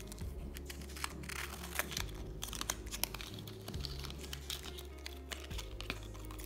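Handling noise from a rose-gold metal mesh watch strap with a magnetic clasp and its cardboard display card: light crinkling and many sharp little clicks, most of them in the middle, over steady background music.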